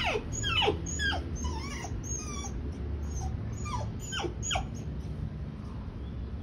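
Dog whining: a string of high, quickly falling whines, most in the first two seconds, then three more about four seconds in. It is the sound of a dog anxious and reluctant to take the stairs while being coaxed.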